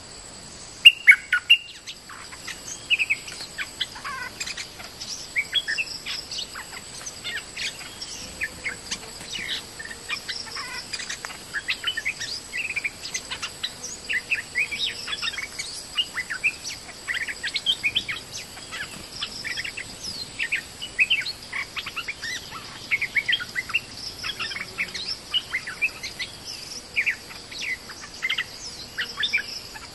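Bulbul singing in short, chirpy phrases repeated over and over, the loudest about a second in. It is a caged decoy bird calling to draw a territorial wild bulbul down to the trap cage.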